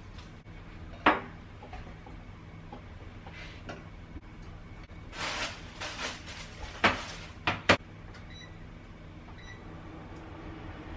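A door being handled: a sharp knock about a second in, rustling a few seconds later, then three sharp knocks and clicks close together near the end.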